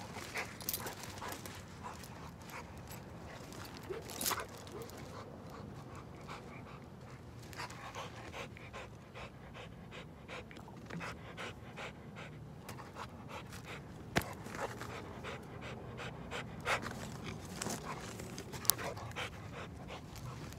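A dog panting steadily, with a few sharp metallic clinks from its chain and collar hardware, the loudest about two-thirds of the way through and near the end.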